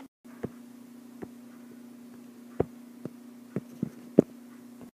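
A steady low electrical hum with about seven light clicks scattered through it, the loudest near the end.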